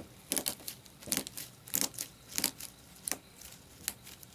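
Small tabs of a thin plastic sheet snapping apart one after another as the carrier-tab strip is pulled off the end of a slit plastic balloon matrix: an uneven series of about a dozen sharp little ticks and crackles.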